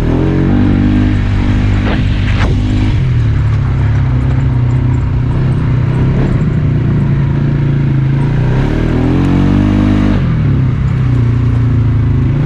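Polaris Sportsman ATV engine running while being ridden. Its note shifts up and down a few times with the throttle, rising and falling back late in the stretch.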